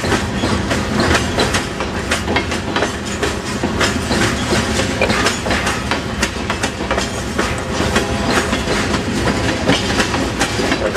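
Freight train cars rolling past, with steel wheels clicking and clattering over the rail joints over a steady rumble.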